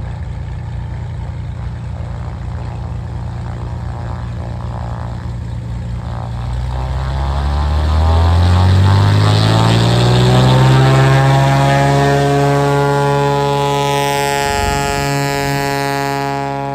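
Single-engine floatplane's piston engine and propeller, running low and steady, then opening up about six seconds in, with the pitch rising into a loud, steady full-power run as the plane begins its takeoff run on floats. A rushing hiss builds near the end.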